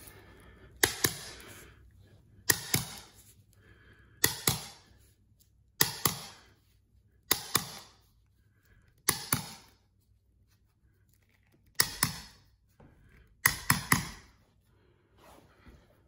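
A hammer striking the handle of a wide-bladed carpet stair tool, tucking the carpet edge down into the gap along the tile. The blows come in sharp pairs roughly every second and a half, about eight times in all.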